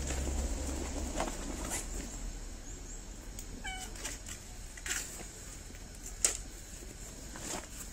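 A street cat giving one short meow, among a few sharp clicks or taps, the loudest about six seconds in.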